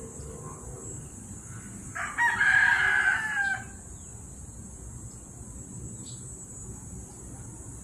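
A rooster crowing once: a single loud call of about a second and a half, starting about two seconds in and dropping in pitch at its end.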